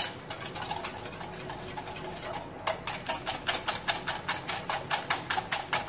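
Metal wire whisk beating a runny egg, sugar, cocoa and milk batter in a glass bowl: a rapid, even run of clicks as the wires strike the glass, softer for the first couple of seconds, then sharper.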